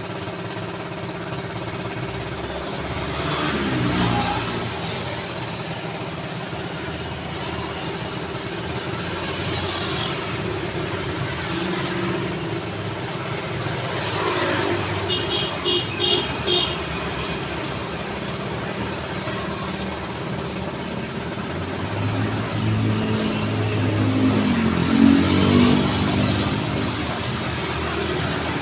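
Steady city road traffic, with cars and engines passing one after another and swelling louder three times. A run of about five short, high beeps comes about halfway through.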